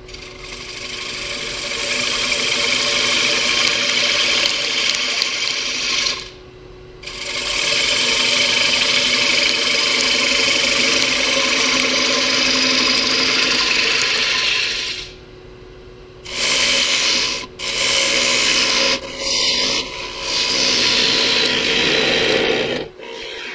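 Bowl gouge cutting the inside of a walnut bowl spinning on a Powermatic lathe: a loud rushing scrape of wood shavings, broken several times by short pauses where the tool comes off the wood. The lathe's steady hum runs underneath.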